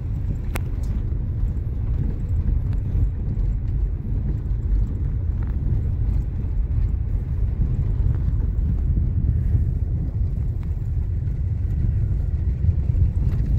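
Steady low rumble inside a car's cabin as it drives on an unpaved dirt road, tyres and engine together. A few light clicks sound over it, the sharpest about half a second in.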